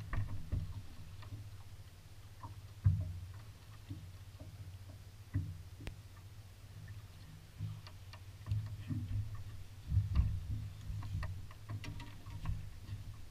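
Irregular low thumps and knocks on a Skeeter bass boat's deck and hull, from anglers moving about while landing a smallmouth bass by hand, with scattered light clicks. The loudest thump comes about three seconds in, and a cluster of knocks comes around ten seconds.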